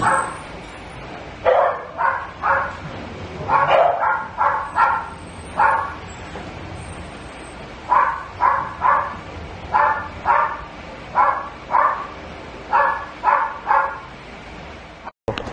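A dog barking repeatedly, in runs of two to four sharp barks separated by short pauses.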